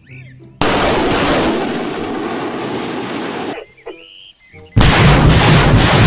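Truck-mounted multiple rocket launcher firing. A sudden loud rush of rocket launches starts about half a second in and fades over about three seconds. A second, heavier salvo breaks out near the end.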